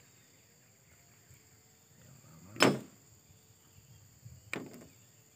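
Small chainsaw engine parts knocked and set down on a wooden stump: one sharp, loud knock about two and a half seconds in, then a lighter clatter of a few clicks near the end.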